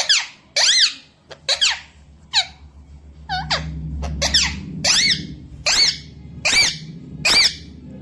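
Rose-ringed parakeet giving about ten short, sharp squawks, roughly one a second, each rising and then falling in pitch.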